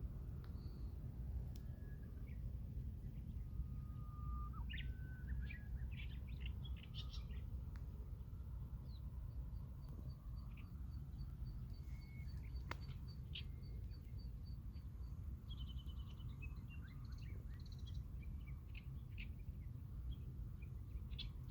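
Japanese bush warblers and other small birds singing, with a long held whistle about four seconds in that breaks into a higher flourish, a run of quick, even, high notes in the middle, and scattered chirps throughout. A steady low rumble of background noise lies underneath.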